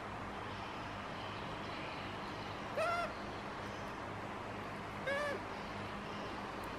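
Baby macaque giving two short high calls about two seconds apart, each rising and then falling in pitch.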